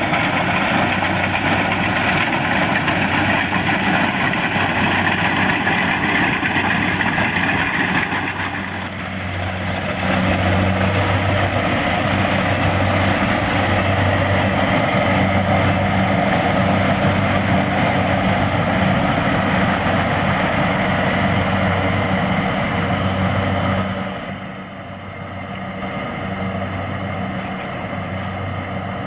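Kubota DC-70 Plus combine harvester running steadily while harvesting rice: a deep engine hum under the clatter of its working machinery. The sound dips briefly about a third of the way in and turns quieter near the end.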